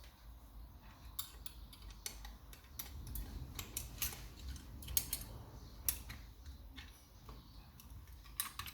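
Homemade lever-lock pick and tension wire working inside a lever mortice lock: faint, irregular small metallic clicks and ticks as the levers are lifted and set, with a few sharper clicks.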